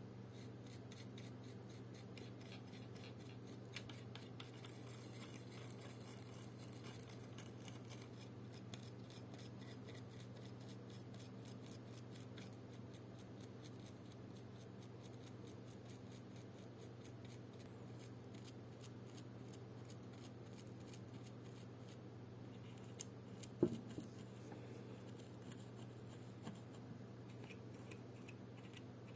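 Small metal watchmaker's tools clicking and scraping against the parts of a Seiko 7S36 automatic watch movement, with one sharper click about twenty-four seconds in, over a steady low hum.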